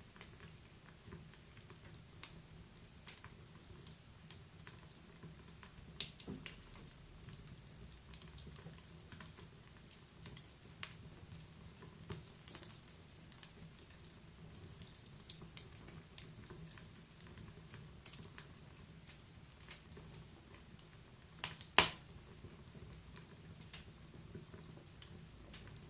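Wood fire burning inside a stove: irregular crackles and snaps over a steady low rumble, with one much louder pop about twenty-two seconds in.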